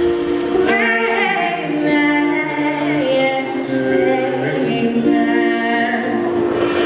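A female lead singer sings live with a band, holding long notes over sustained chords.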